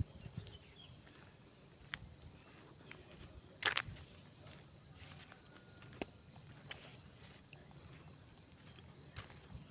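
Faint, steady chirring of insects, with a few footsteps and knocks as the person walks. The loudest knock comes a little under four seconds in.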